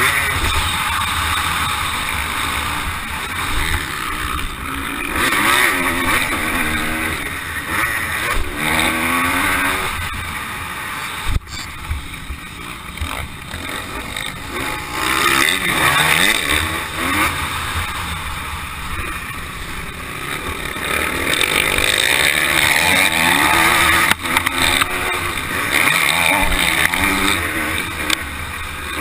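Motocross bike engine revving up and falling back again and again as it accelerates and shifts through the gears, with two sharp knocks, about eleven seconds in and again near twenty-four seconds.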